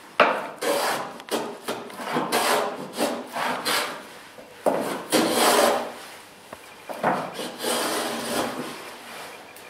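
Small hand plane shaving the scarf joint on the end of a boat plank, each stroke a rasping swish of steel on wood. A quick run of short strokes, about two a second, gives way about halfway through to fewer, longer strokes.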